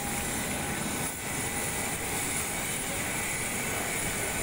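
Steady jet turbine noise from a parked Boeing 737 airliner: a continuous rush with several thin, high whining tones held steady.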